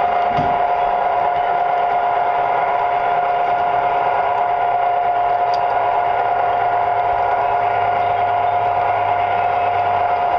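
Tinplate model electric train running along its track, heard from on board: a steady motor whine held at one pitch over the running noise of the wheels.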